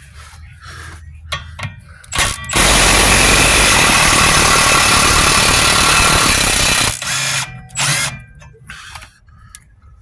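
Power tool spinning a socket on an extension to back out a suspension bolt: a loud, steady run of about four seconds starting near the three-second mark, with metallic clicks and knocks of the socket and tools before and after.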